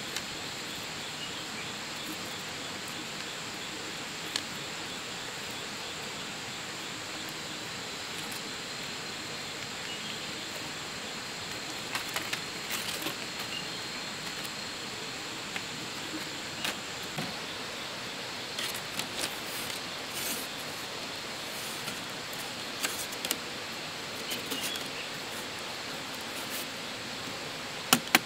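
Split bamboo strips clicking and rustling lightly as they are laid and woven into a lattice, over a steady high hiss of jungle insects. Near the end come a few sharp knocks as a machete taps the weave.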